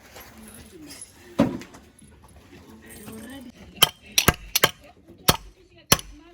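Seven sharp, hard clinks and knocks in quick, uneven succession from about four seconds in, over faint background voices.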